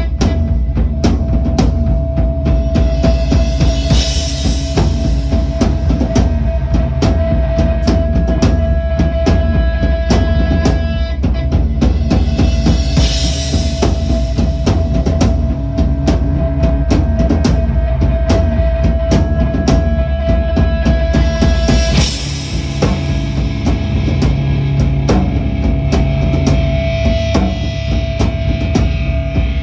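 Rock music with a drum kit playing a steady, driving beat, and guitar.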